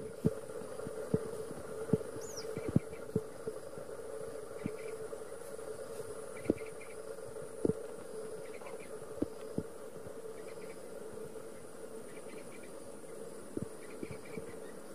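Insects calling: short chirps repeating about once a second over a steady high-pitched whine, with a faint steady hum underneath. Irregular sharp clicks, a dozen or so, stand out as the loudest sounds.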